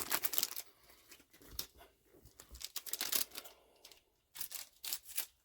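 Plastic trading-card booster pack wrapper being crinkled and torn open by hand in short, irregular rustling bursts with brief pauses.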